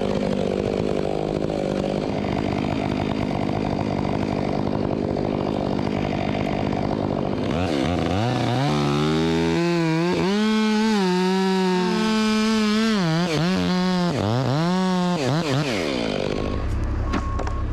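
Gas chainsaw running at a steady speed, then revving up and down repeatedly for several seconds as the throttle and cutting load change. Near the end it gives way to a lower, steady hum.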